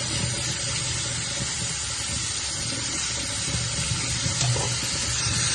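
Kitchen tap running hard into a sink, a steady rush of water, shut off near the end.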